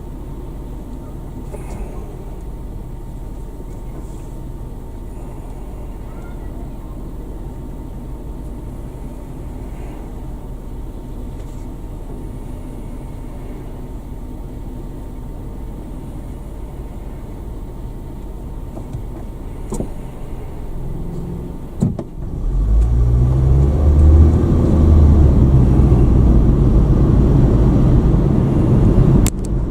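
Car engine and road noise, low and steady for most of the stretch. About two-thirds of the way through, after a click, it grows much louder as the car accelerates.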